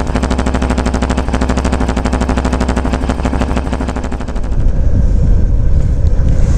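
Bajaj CT 110 BS6's 115 cc single-cylinder engine idling fast on a cold morning start, a rapid, even putter. The speaker puts the high idle down to the ECU reacting to the cold engine and says it is nothing to worry about. About four seconds in, it gives way to a lower rumble with wind on the microphone as the bike is ridden.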